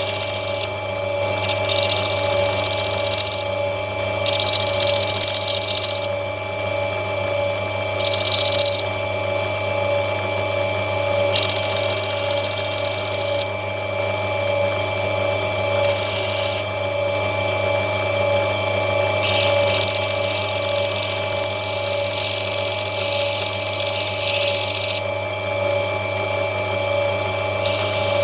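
Lapidary cutting machine's motor running with a steady hum while an opal is pressed to the spinning grinding wheel about eight times, in hissing spells of a second up to about six seconds. The stone is being rubbed back to grind out a sand spot.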